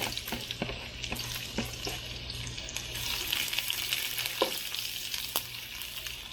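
Chopped garlic and shallots sizzling in hot oil in a pan, with a spatula stirring and knocking against the pan now and then. The sizzle swells a little about three seconds in.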